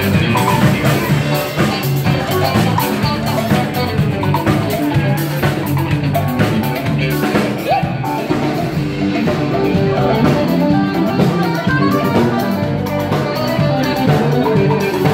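Live band playing dance music: drum kit and electric guitars.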